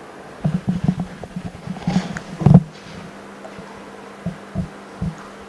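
JiuTu M007 OCA vacuum laminating machine humming steadily as it runs its laminating cycle. A run of low thumps and knocks comes in the first half, the loudest about two and a half seconds in, and three more single thumps come near the end.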